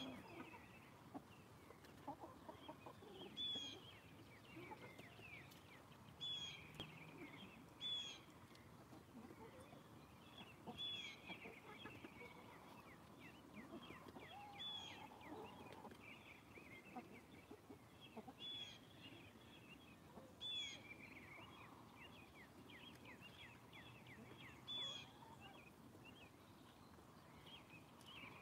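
A flock of hens clucking softly as they feed. A sharper, higher call stands out every two to four seconds.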